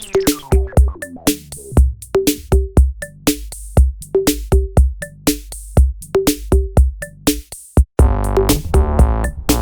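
Background electronic music with a steady drum-machine beat. The fuller synth and bass layers drop away for most of the stretch, leaving mainly kick and percussion hits, then come back in near the end.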